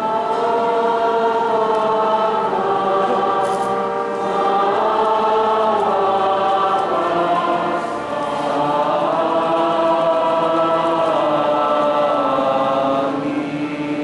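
Choir singing a slow hymn in sustained notes, in phrases of about four seconds each; the singing ends about a second before the close.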